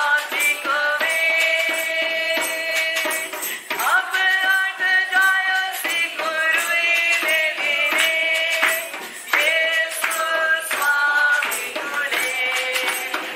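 A woman sings a worship song into a microphone, holding long notes over light percussion.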